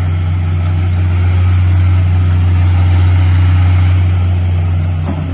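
Daewoo crawler excavator's diesel engine running steadily, a constant low drone.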